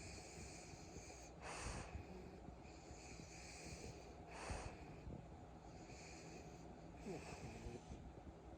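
French bulldog snoring in its sleep: faint, snorting breaths at a slow, regular pace, about one every three seconds.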